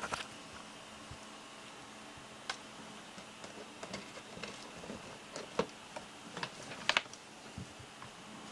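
Irregular soft clicks and taps of close-up handling and small kittens scrambling about, coming thicker about five to seven seconds in, over a faint steady hum.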